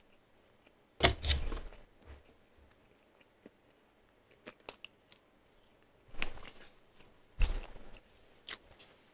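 Close-miked mouth sounds of eating crispy fried chicken: a few loud crunching bites, about a second in and again several times near the end, with small wet mouth clicks between.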